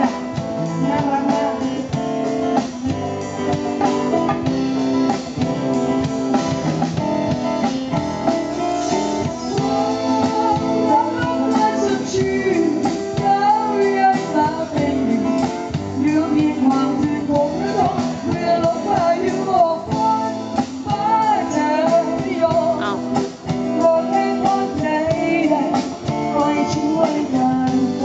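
A woman singing into a microphone over a live band with a drum kit.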